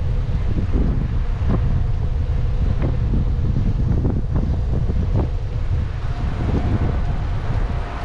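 Strong wind buffeting the microphone on a moving bike: a loud, steady low rumble, with scattered faint clicks over it.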